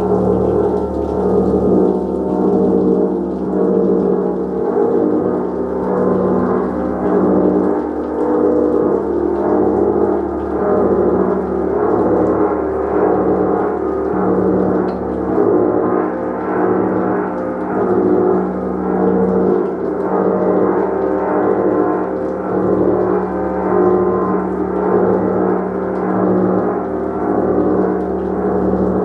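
Gong played continuously, a dense sustained ringing of many overlapping tones that swells and ebbs in a slow, even pulse about every one and a half to two seconds.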